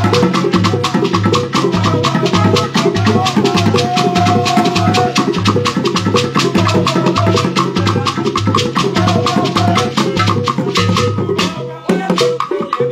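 Igbo traditional percussion music: several hand drums beaten with sticks, with shaker-like rattling, playing a fast, steady dance beat. The playing breaks off briefly near the end, then starts again.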